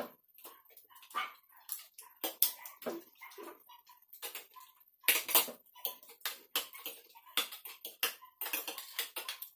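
Eating at a table: a string of short, irregular clicks and smacks from spoons and forks on plates and from chewing, with a louder cluster about five seconds in.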